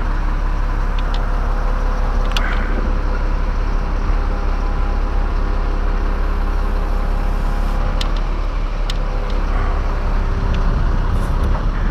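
Bucket truck engine running steadily at idle, a low hum with faint steady tones, with a few light clicks.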